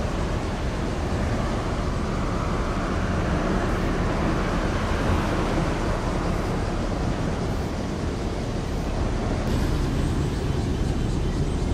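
Steady low rumble under an even haze of noise, unchanging throughout, with no distinct events.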